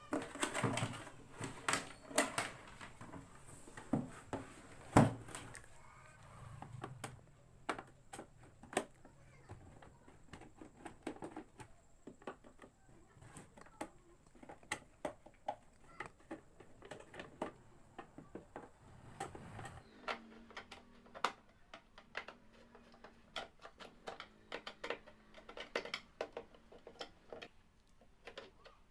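Scattered clicks, taps and knocks of plastic and metal parts as a mixer grinder is handled and taken apart by hand; the motor is not running.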